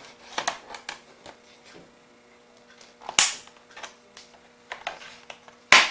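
Plastic screen bezel of a Lenovo G700 laptop being pried off, its clips snapping loose: scattered small clicks and two loud sharp cracks, one about three seconds in and one near the end.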